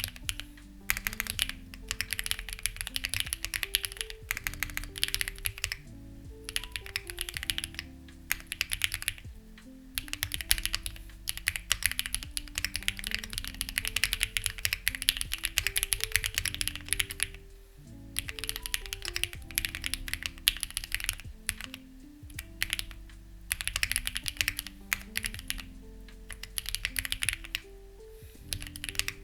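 Continuous typing on a Lucky65 v2 mechanical keyboard with stock, unlubed HMX Ziwei switches and clone CMK keycaps, a dense run of key clicks that breaks off briefly about nine and about seventeen seconds in. Soft background music with held low notes plays under the typing.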